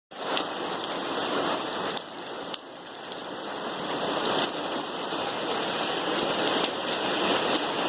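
Heavy downpour with light hail: a steady dense hiss of rain striking surfaces, with scattered sharp ticks of individual impacts. The rain dips briefly about two seconds in, then builds again.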